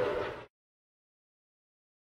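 A train whistle sounding a steady chord fades and cuts off about half a second in, followed by dead silence.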